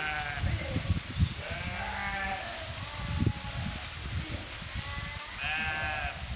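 A flock of sheep and goats bleating: several wavering bleats, the loudest one near the end, over a low, uneven rumble.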